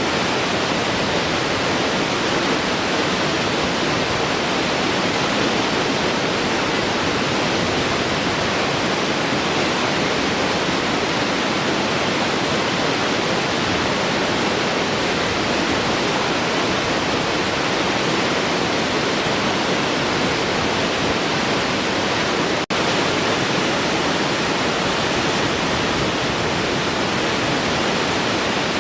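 A large waterfall rushing in a steady, even roar of falling water. There is a momentary dropout about three quarters of the way through.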